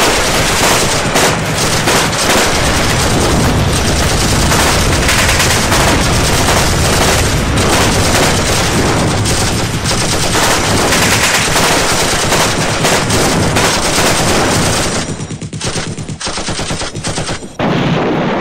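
Loud, dense, continuous machine-gun fire. It thins out about fifteen seconds in, with one more short volley near the end.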